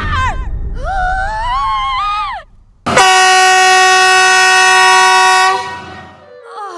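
A loud, steady multi-tone train air horn blast of about two and a half seconds, starting about three seconds in and fading out. Before it comes a shorter tone that wavers and rises in pitch.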